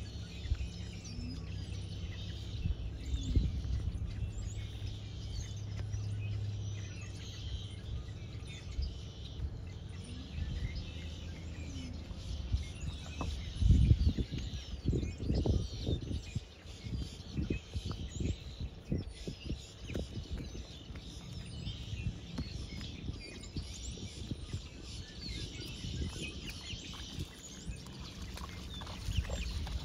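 Outdoor ambience: small birds chirping in the background over a low rumble, with a run of dull thumps about halfway through.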